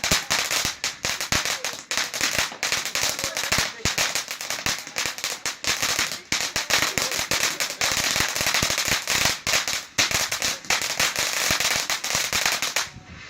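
Fireworks going off in a rapid, dense string of cracks and bangs, many a second, that stops suddenly near the end.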